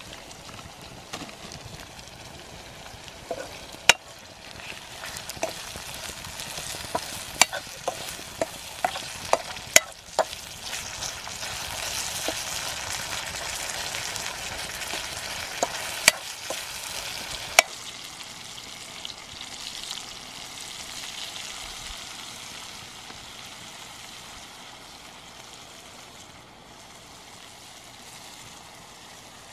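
Sliced vegetables frying in a wok-style metal pan over a wood fire, a steady sizzle, with a steel ladle clicking and scraping against the pan as they are stirred. The clicks come mostly in the first half, and the sizzle fades in the last third.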